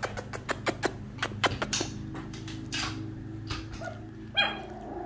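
Miniature schnauzer puppies at play: a quick run of sharp clicks and taps in the first two seconds, then a short, high, whiny puppy whimper about four seconds in.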